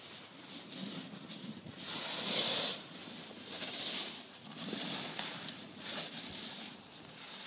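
Skis sliding and carving on snow through turns: a hissing swish that swells every second or two, loudest about two and a half seconds in.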